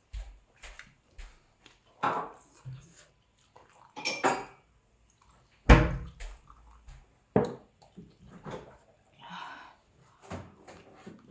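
Cutlery and dishes clinking and knocking at irregular intervals during a meal, a string of separate clinks with the loudest knock a little past halfway.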